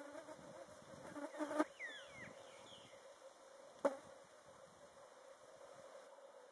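Steady buzzing of flying insects, with a run of clicks about a second and a half in, a few short falling bird chirps just after, and one sharp click near the middle.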